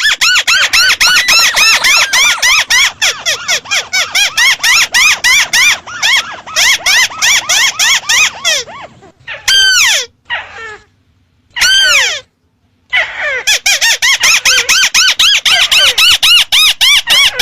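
Ruddy-breasted crake calls played as a lure recording: a loud, rapid series of squealing notes, each rising and falling, many overlapping, several a second. The calls break off twice for about a second, about two-thirds of the way through.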